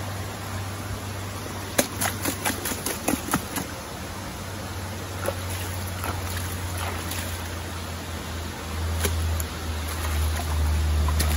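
River water flowing steadily, with a low rumble underneath that grows louder near the end. A run of sharp clicks and knocks comes about two to three and a half seconds in, and a few more come later.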